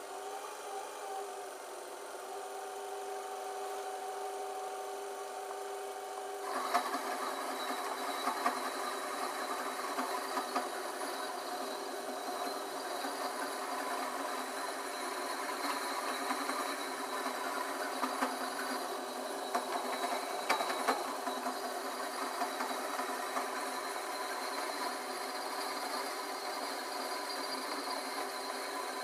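A flat file held against a copper pipe spinning in a metal lathe, making a steady scraping grind from about six seconds in. Before that there is only a steady hum.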